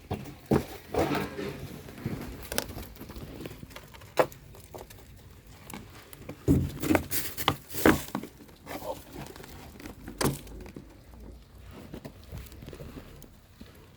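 Goats eating corn: irregular crunching, rustling and crinkling, with a cluster of louder crunches about six to eight seconds in.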